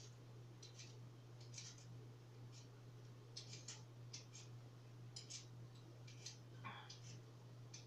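Faint, irregular light clicks and scrapes of hands working at a kitchen counter, over a steady low hum.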